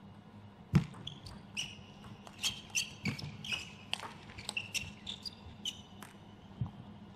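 Table tennis rally: a celluloid-type ball clicking back and forth between rackets and table in quick, irregular hits for about six seconds. It opens with a loud thump about a second in, and low thumps sound twice more during the rally.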